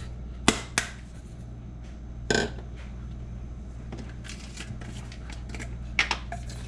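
Spice container handled while red pepper flakes are shaken into a pot: two sharp clicks about half a second in, a short rattle about two seconds in, and two more clicks near the end, over a steady low hum.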